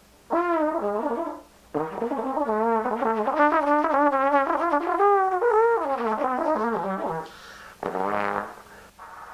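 Solo trombone improvising in freely wavering, sliding phrases. There is a short gap about a second and a half in, then a long phrase, then one last short note near the end.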